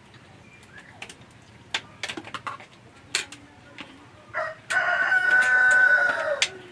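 A rooster crowing once, a long held call of about two seconds that drops off at the end, about four and a half seconds in; before it, a few light clicks of spoons on plates.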